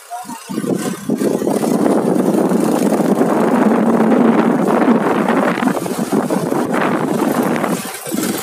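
Suzuki motorcycle engine picking up from idle about half a second in and running steadily under way, then easing off near the end.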